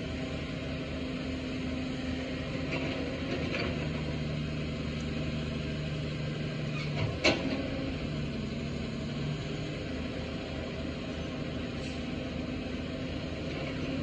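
Caterpillar 320 hydraulic excavator's diesel engine running as it digs, its tone shifting as the hydraulics take load. One sharp knock a little past halfway.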